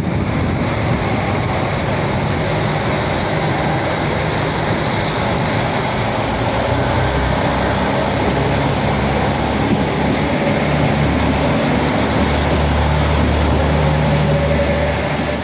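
JR Hokkaido KiHa 261 series diesel express train pulling away along the platform, its diesel engines running under power with a steady rumble and a faint whine. The rumble grows stronger in the second half.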